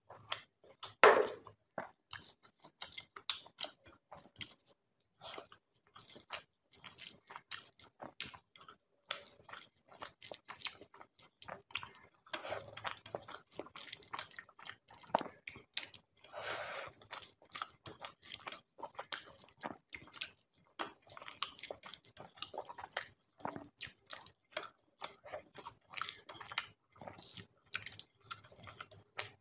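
Close-up eating sounds: chewing mouthfuls of rice and curry, with many short irregular smacks and clicks, and fingers mixing rice on the plate. About a second in comes the loudest sound, as a bowl of food is tipped onto the rice.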